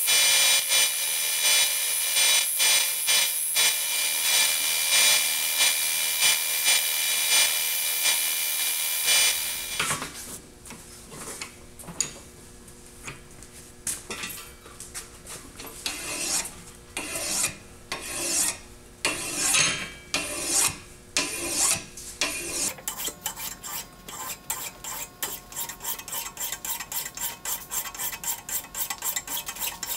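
A motor-driven sanding drum runs with the beryllium-copper hammer head pressed against it: a steady abrasive hiss on metal that stops about nine seconds in. Then a hand file works the hammer head clamped in a vise. The strokes are slow and uneven at first, then quick and regular, about four a second, near the end.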